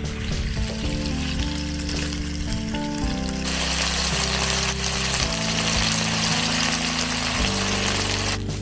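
Diced chicken sizzling as it fries in hot oil in a wok. The sizzle grows loud about three and a half seconds in and cuts off suddenly just before the end. Background music with sustained tones plays underneath.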